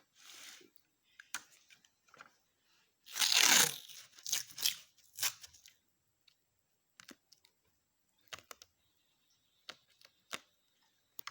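Handling noises: one loud tearing rasp about three seconds in, a few shorter rasps after it, then scattered light clicks and taps.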